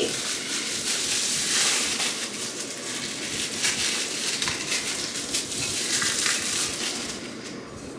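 Packaging crinkling and rustling as an item is unwrapped, with dense small crackles throughout.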